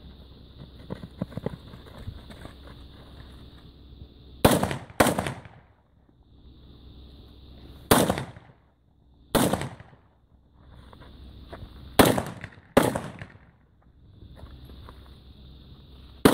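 AK-pattern rifle firing seven single shots, a few seconds apart, some in quick pairs, each with a short echo trailing off.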